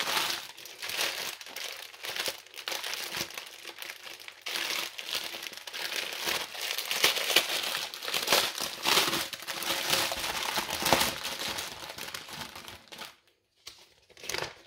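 Clear plastic wrapping on a rolled canvas crinkling as it is handled, a dense crackly rustle that stops about a second and a half before the end, followed by one short last rustle.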